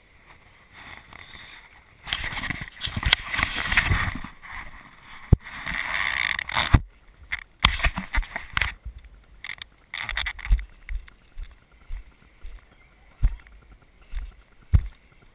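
Rushing, buffeting noise and knocks on a handheld action camera's microphone as it is moved about. This gives way to a run of separate low thumps after about seven seconds, typical of the camera being carried along.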